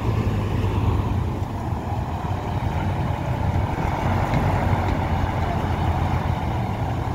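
Diesel engine of a large coach bus running at low revs as the bus drives slowly past; a steady low engine note.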